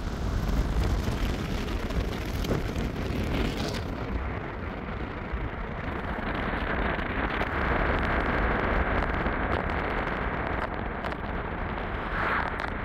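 Steady rumble and hiss of a moving vehicle heard from inside, with road and wind noise; about four seconds in the hiss loses its highest part and turns duller.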